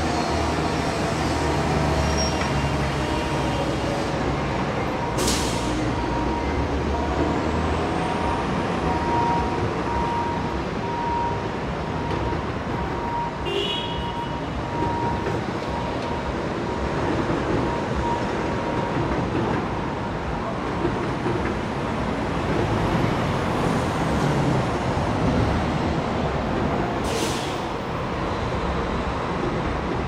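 Dense city street traffic: a continuous wash of passing vehicles, with a heavy vehicle's engine rumbling for the first several seconds. Two short sharp hisses come about five seconds in and near the end, and a brief high squeal about halfway through.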